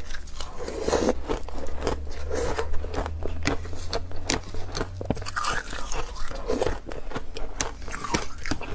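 Close-up biting and chewing of soft foam ice (freezer frost): many quick, crisp, irregular crunches.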